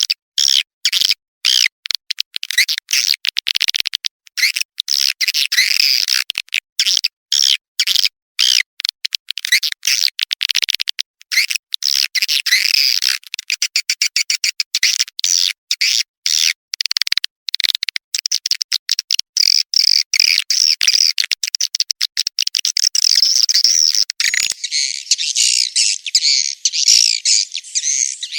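Swiftlet lure call: a mixed recording of swiftlets' high twittering chirps, chopped by many brief silent gaps. About 24 seconds in it changes to an unbroken, denser chorus of chirping.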